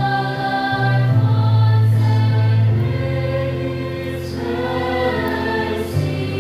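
A church choir sings a slow hymn over held accompaniment chords that change every second or two.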